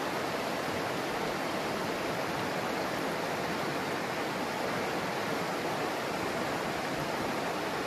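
Steady rush of flowing stream water, an even, unbroken noise.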